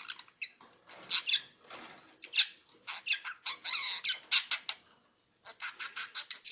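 Pet budgerigar chattering to itself in quick, high, squeaky bursts, mixed with mimicked Mandarin words. It pauses briefly past the middle, then gives a fast run of clicks.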